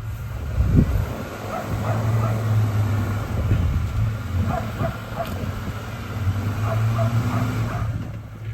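Jeep Wrangler JK engine running low and steady off-road, with a thump about a second in and repeated short high-pitched squeaks or whines over it.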